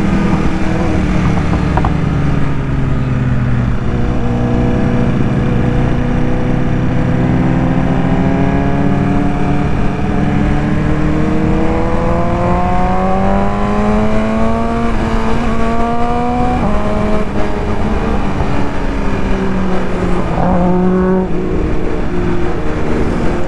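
BMW S1000RR's inline-four engine through an Akrapovic full-system exhaust, heard from the rider's seat: the revs ease off, climb steadily for several seconds, drop sharply at an upshift from second to third about sixteen seconds in, then climb again. Wind noise runs underneath.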